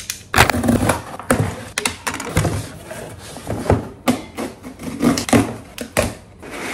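Cardboard shipping boxes being handled and put down on a desk: irregular knocks, taps and scrapes of cardboard.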